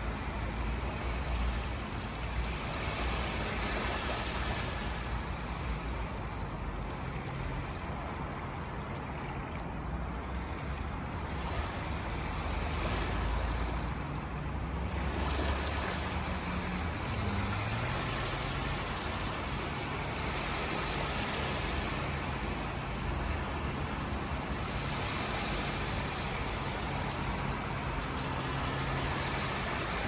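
Small waves lapping onto a shallow sandy beach: a steady wash of surf with gentle swells as each wave runs up and retreats, over a low rumble.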